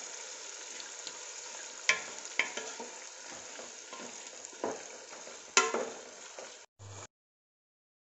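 Jackfruit strips deep-frying in a large pan of coconut oil: a steady sizzle, in the early stage of frying soon after the raw strips go into the boiling oil. A wooden spatula stirs them and clicks against the pan several times. The sound cuts off about seven seconds in.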